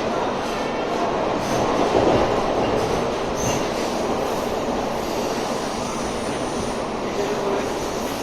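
Air-conditioned suburban electric local train running, a steady rumble of wheels on track heard from inside the carriage, with a faint high wheel squeal.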